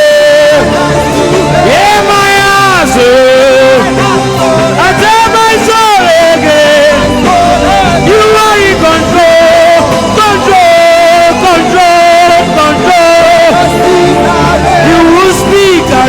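Live gospel worship music: a voice singing a wavering, sliding melody over sustained keyboard-like chords and a low bass.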